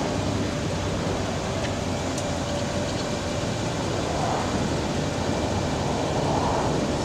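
Steady running noise from a 2006 Chevrolet C4500 bucket truck as its ETI ETC35SNT aerial boom raises, with a low hum under it.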